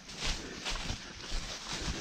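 Footsteps crunching through dry fallen leaves on a forest floor, a brisk walk of roughly two steps a second.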